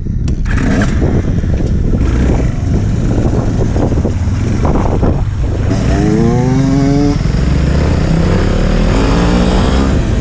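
Off-road motorcycle engine running under way over a steady rushing noise, its pitch rising as it accelerates about six seconds in and again near the end.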